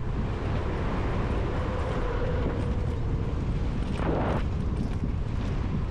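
Wind buffeting the microphone and tyre noise while riding an electric dirt bike, with a faint steady motor whine through the middle and a brief louder noise about four seconds in.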